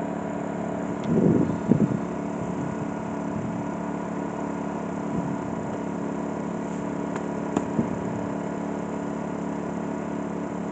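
Small piston air compressor (air pump) for a foam generator running steadily at its lowest setting, a constant hum of even tones, with a brief louder sound about a second in.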